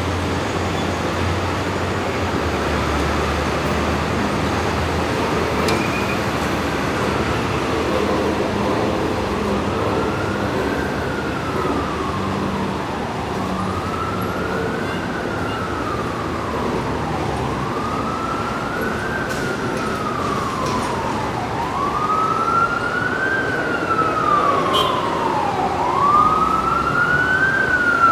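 Emergency vehicle siren in a slow wail, its pitch rising and then falling about once every four seconds, growing louder in the last several seconds as it approaches. Steady city traffic noise runs underneath.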